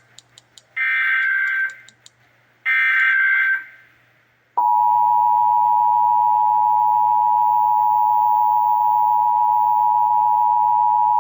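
Emergency Alert System Required Monthly Test tones. First come two of the SAME header data bursts, each a warbling digital chirp about a second long, about a second apart. Then, about four and a half seconds in, the two-tone EAS attention signal (853 and 960 Hz together) begins and holds steady and loud.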